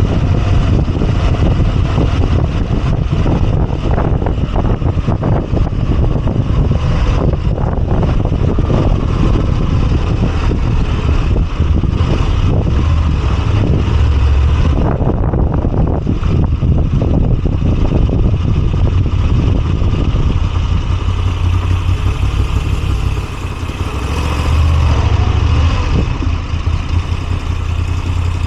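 Moto Guzzi V85TT's air-cooled V-twin engine running under way, with road and wind noise. Past two-thirds in, the engine eases off briefly, then picks up again.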